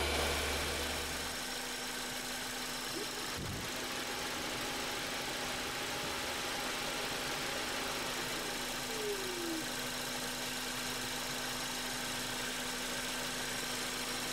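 Honda Accord's 2.4-litre four-cylinder engine running steadily, fully warmed up, with a steady hum. A deep low drone drops away about a second and a half in.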